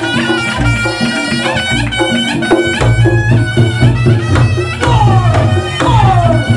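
Reog Ponorogo gamelan music: a reedy slompret melody over kendang drum strokes and sustained low gong tones. From about five seconds in, the melody falls in repeated downward swoops, about one a second.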